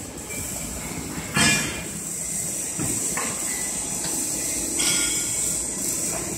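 Factory workshop noise: a steady hiss with a few knocks, the loudest a sharp knock about a second and a half in.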